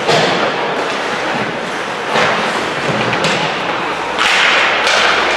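Ice hockey play in an indoor rink: skate blades scraping the ice, with a few sharp clacks of sticks and puck and thuds against the boards. A louder scraping hiss comes about four seconds in.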